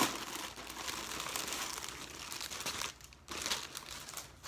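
Packaging crinkling and rustling as a parcel is opened and handled, with a brief lull about three seconds in.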